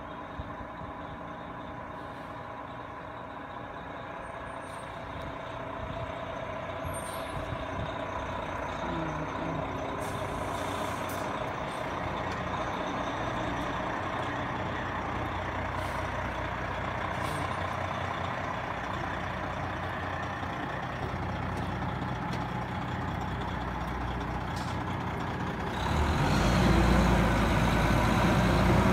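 Fire engine's diesel engine running as the truck pulls out and drives away, growing gradually louder, then jumping sharply about 26 seconds in as it passes close and speeds up with a rising engine note.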